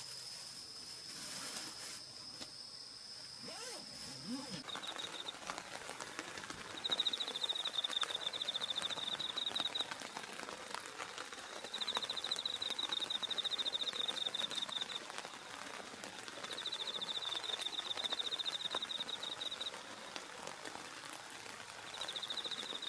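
An insect trilling at a high pitch in repeated phrases of about three seconds each, with short pauses between, over faint scattered crackles.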